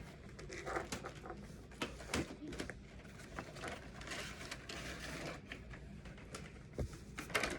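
Cardboard and plastic packaging of an action-figure box being handled and opened, with scattered light clicks and rustling.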